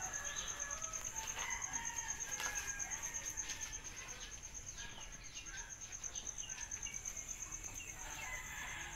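Outdoor ambience: a steady, high, pulsing insect trill with many short bird chirps and clucks scattered through it.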